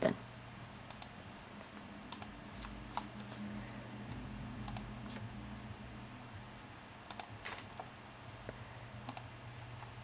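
Faint scattered clicks of a computer mouse and keyboard, a few at a time with pauses between, over a low steady hum.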